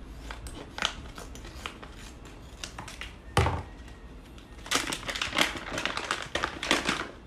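Vacuum-sealed plastic packaging crinkling and crackling as it is opened by hand to unwrap a split-core current transformer, with one heavy thump about three and a half seconds in and a dense run of crinkling near the end.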